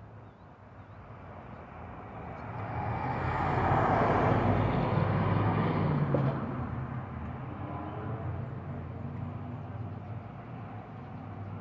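Road noise from a vehicle passing on the street, swelling for a few seconds and then fading, over a steady low traffic hum.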